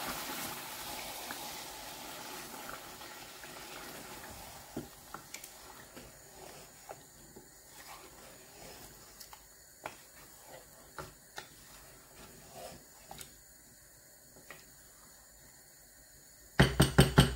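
Wooden spatula stirring chicken in a thick tomato masala in a pot, with a soft sizzle that fades over the first few seconds and scattered light scrapes and knocks of the spatula against the pot. A short loud clatter comes near the end.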